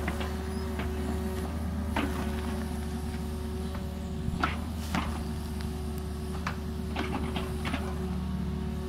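Engine of a small earthmoving machine running steadily while its steel blade pushes loose soil back into a trench, with scattered metallic clanks and knocks.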